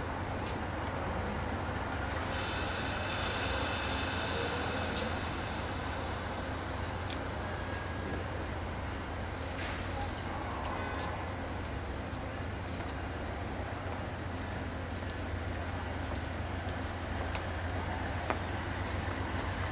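Crickets chirping in a steady pulsing trill over a low, steady rumble from a passenger train.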